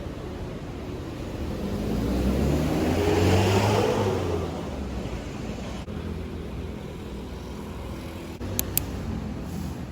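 A motor vehicle passing by: its engine sound swells to a peak about three seconds in, then fades, over steady street noise. Two short clicks come near the end.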